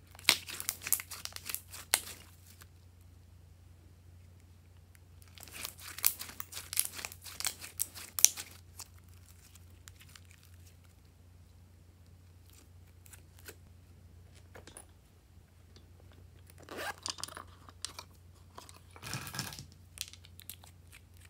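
Glossy slime squeezed and kneaded by hand, its trapped air popping in dense crackles and squelches, in two bursts of a few seconds each. Two shorter crackly bursts come near the end.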